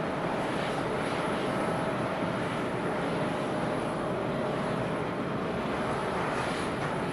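Jet airliner engines running, a steady rushing sound with a faint steady whine and no clear rise or fall.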